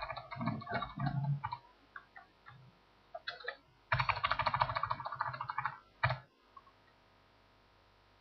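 Computer keyboard keys tapped in quick runs: a cluster at the start, a few single taps, then a long fast run of keystrokes about four seconds in and one last tap about two seconds later.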